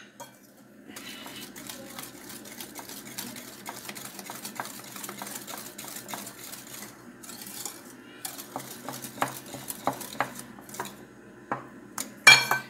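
Wire whisk beating cake batter in a glass bowl by hand: a fast, uneven run of clicks as the wires strike the glass. There is a louder clink near the end.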